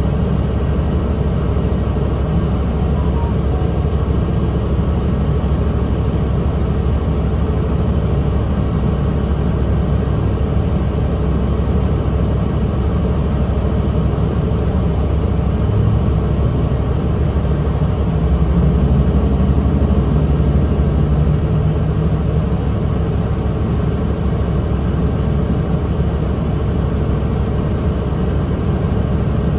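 Cummins ISL inline-six diesel of a 2009 Nabi 40LFW hybrid transit bus, with Allison EP40 hybrid drive, running as a steady low rumble. Its note rises briefly about two-thirds of the way through, then settles again.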